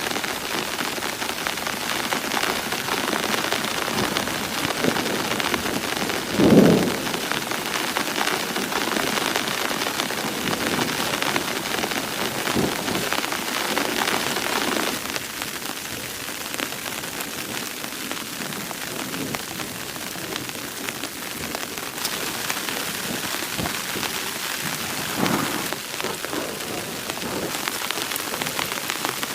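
Steady rain pattering on a surface, with a short louder low thump about six seconds in and a weaker one near the end.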